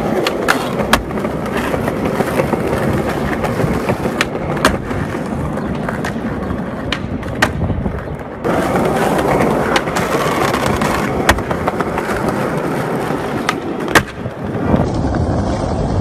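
Skateboard wheels rolling over concrete, broken by several sharp clacks of the tail popping and the board landing.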